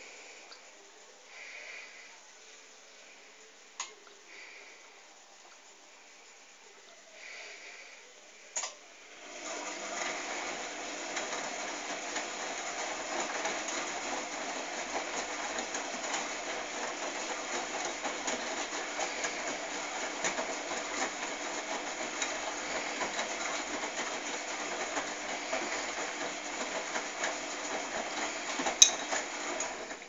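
AEG front-loading washing machine in its main wash. For about the first nine seconds it is fairly quiet, with a couple of clicks. Then the drum starts turning, and the laundry and water swish steadily in it, with one sharp knock near the end.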